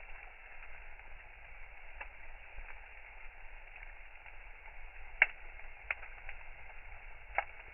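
Wood bonfire crackling over a steady hiss, with sharp pops from the burning wood; the loudest pop comes about five seconds in, with others around two, six and seven seconds.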